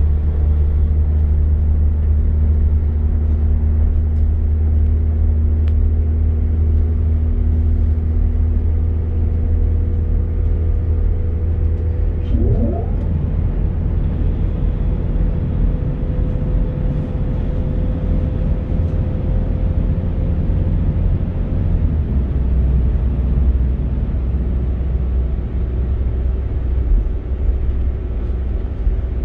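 Interior running noise of a Northern Class 195 diesel multiple unit at speed: a loud, steady low rumble with a hum of engine and transmission tones. About twelve seconds in one tone drops away as a brief rising tone sweeps up, and the low drone shifts again near the end.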